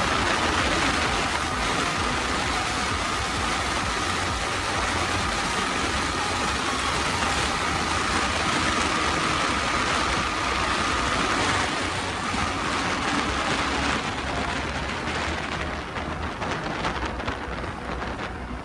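Heavy wind rushing over the microphone on a Yamaha MT-15 motorcycle at high speed, with a steady high whine under it that stops about two-thirds of the way in. The noise eases toward the end, as if the bike is slowing.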